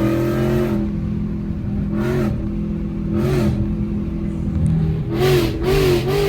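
Ford Coyote 5.0 V8 in an S650 Mustang GT with long-tube headers running loud under throttle, its pitch holding fairly steady after a pull, with several brief louder surges of exhaust rasp about two, three and five seconds in.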